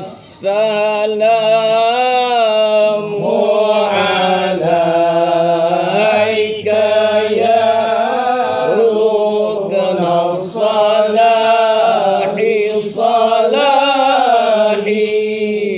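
Men chanting an Islamic zikir selawat in Arabic: long melodic phrases with held, bending notes, broken by short breaths every few seconds. The chant stops abruptly at the end.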